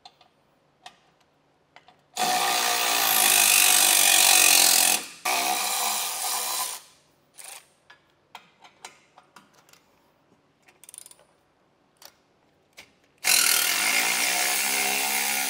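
Milwaukee cordless electric ratchet running in two runs of a few seconds, about two seconds in and again near the end, spinning up at the start of each, as it backs out frame stiffener bolts. Light metal clicks and taps come in between.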